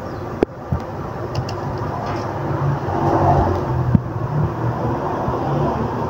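A crimping tool closing on an RJ45 connector on UTP cable, giving a sharp click about half a second in and a few smaller ticks after. Steady low rumbling background noise runs underneath.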